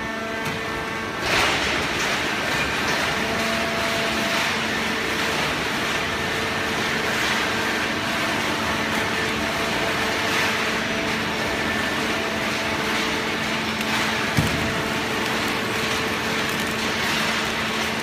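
Horizontal hydraulic cardboard baler running, a steady machine hum with held tones. The noise steps up about a second in, and there is one sharp knock near the end.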